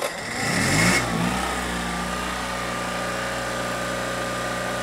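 Kohler 6.5 kW gasoline marine generator starting up. It comes up to speed over about the first second, then settles into steady running.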